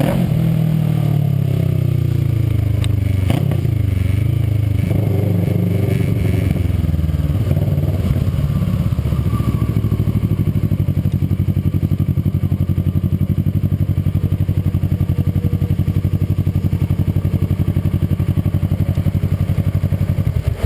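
Kawasaki ER-6n's parallel-twin engine through a WR aftermarket exhaust. Its revs fall as the bike slows over the first few seconds, with a single knock about three seconds in, then it idles steadily with an even pulse.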